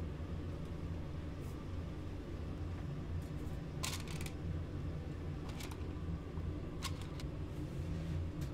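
Steady low machine hum with several short sharp clicks and taps, the strongest about four seconds in.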